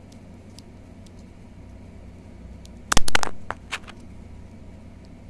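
Keys being pressed on a mechanical keyboard with tactile brown switches: a few faint ticks, then a quick cluster of loud key clacks about three seconds in, with two lighter clicks right after.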